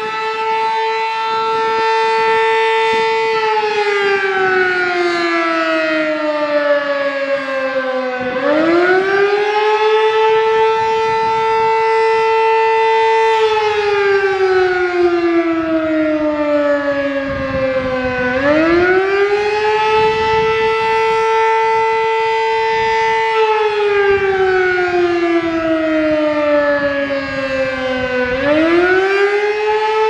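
Sterling Model M three-phase outdoor warning siren sounding the attack signal, very loud: its two tones, one an octave above the other, rise quickly, hold for about three seconds, then slide down over about five seconds. The cycle repeats about every ten seconds, starting up again about 8, 18 and 28 seconds in.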